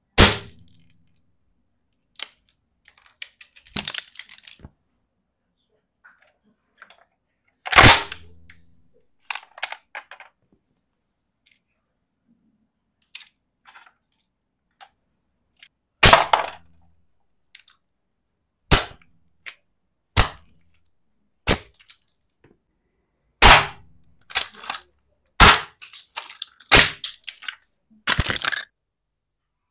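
Hard plastic toys, a doll's pram and a plastic doll, cracking and snapping as a heavy boot stamps on them: about ten loud, sharp cracks at irregular gaps, with smaller clicks and rattles of broken pieces between.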